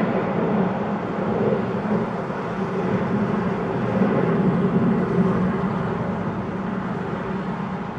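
Steady rumbling roar of a formation of jet aircraft in flight, swelling slightly a couple of times.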